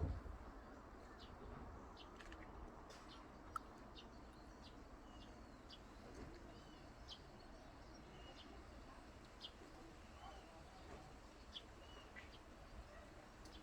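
Faint bird chirps: short high calls scattered through, over a low background hiss, with one sharp click about three and a half seconds in.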